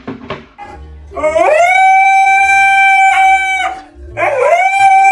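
A dog howling: two long howls, each rising at the start and then held on one steady pitch, the first beginning about a second in and the second starting after a short break near the end.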